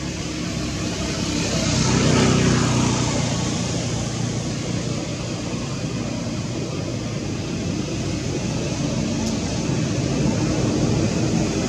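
Engine noise of a passing motor vehicle, loudest about two seconds in, then another engine sound building near the end.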